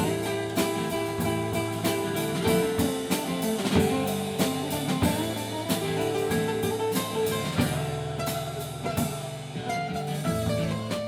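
Live band playing an instrumental break between verses: electric guitar and bass over a drum kit keeping a steady beat.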